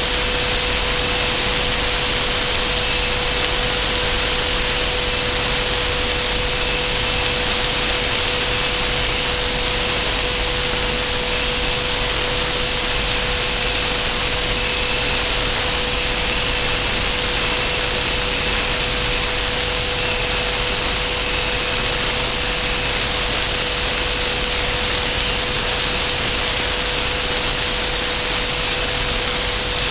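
A machine running steadily with a loud high-pitched whine that wavers slightly, over a lower steady hum and hiss.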